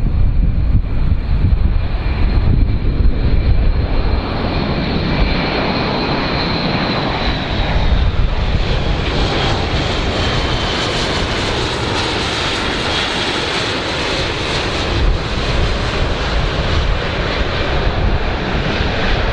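Airbus A400M's four turboprop engines and eight-bladed propellers running as it flies low past: a steady high whine over a rumbling roar. Toward the middle the sound grows fuller and brighter and the whine drops a little in pitch.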